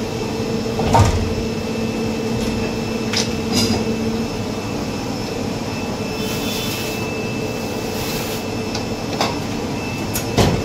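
Plastic injection moulding machine running with a steady hum. About six seconds in, an aerosol can hisses in two short bursts as it is sprayed onto the open mould. A few sharp knocks come from handling at the mould, the loudest about a second in and just before the end.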